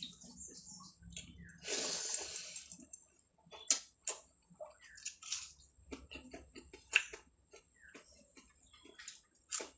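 A person eating: wet chewing and mouth clicks, with a longer noisy burst about two seconds in.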